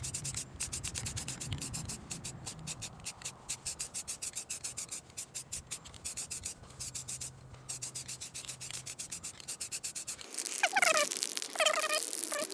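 Aerosol spray-paint can being shaken, its mixing ball rattling in even strokes about five times a second. About ten seconds in the rattling stops abruptly, and a few short chirps follow near the end.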